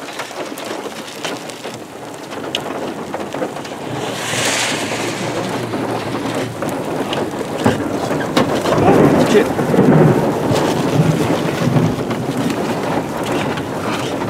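Rain falling on and around a vehicle, heard from inside the cabin, with a short rush of hiss about four seconds in. A low rumble of thunder builds about eight seconds in and is loudest around ten seconds.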